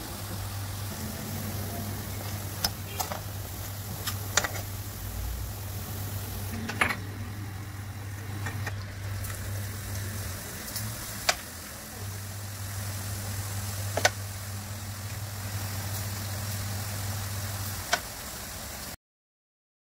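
Small drops of gram-flour batter deep-frying in hot oil, sizzling steadily, with a sharp click or tap every few seconds and a steady low hum underneath. The sound cuts off suddenly just before the end.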